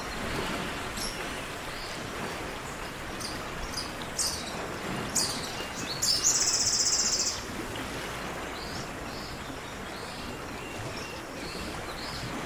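Outdoor nature ambience: songbirds chirping here and there over a steady background hiss. About six seconds in, a loud, fast, high trill lasts about a second.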